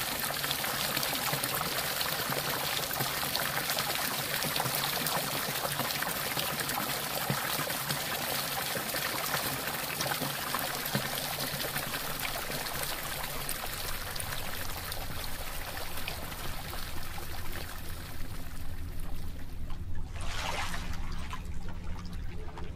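Running water: a steady rush of flowing water. Over the last third it grows deeper and duller, with a brief surge near the end.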